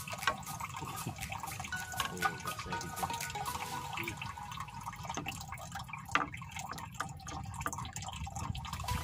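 Sea water lapping, sloshing and dripping against the hull of a small outrigger boat drifting with its engine off, with many small irregular splashes and knocks.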